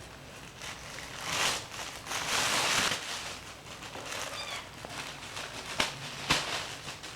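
Six-week-old kittens play-fighting: bursts of scuffling noise, a faint high-pitched mew about four seconds in, and two sharp taps near the end.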